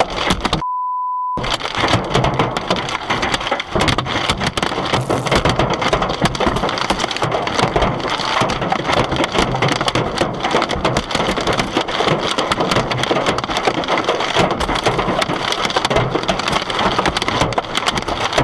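Hail pelting down on cars and surrounding surfaces: a loud, dense clatter of countless hailstone impacts. Under a second in, the sound drops out briefly behind a short steady censor bleep.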